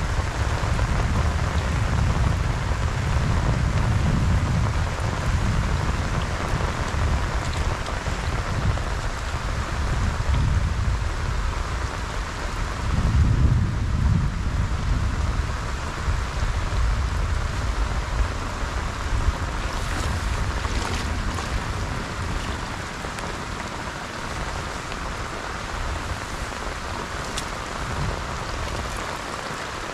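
Steady rain falling on grass and shallow marsh water, an even hiss, with a low rumble that comes and goes and is strongest in the first half.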